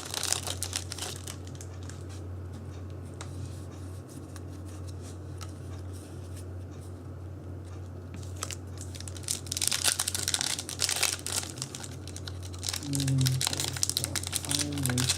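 Foil Yu-Gi-Oh! booster-pack wrappers crinkling and tearing open as cards are handled: a few crinkles at first, a quieter stretch with scattered ticks, then busy crinkling from about nine seconds in. A steady low hum runs underneath.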